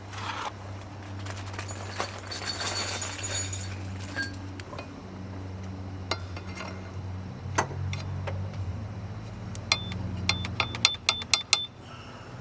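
Metal tools and parts clinking and clattering during scooter rear-wheel assembly: a ringing clatter about two seconds in, a few single clinks, then a quick run of ringing clinks near the end, over a steady low hum.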